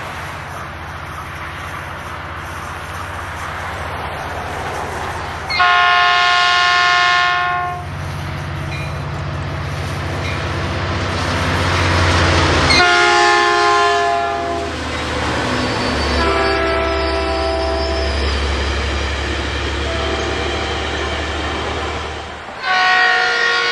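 Metrolink EMD F59 diesel-electric locomotive approaching and sounding its multi-note horn chord over the rising rumble of its diesel engine. One long horn blast comes about six seconds in, another around thirteen seconds, a softer held blast from about sixteen to twenty-two seconds, and a loud blast starts near the end.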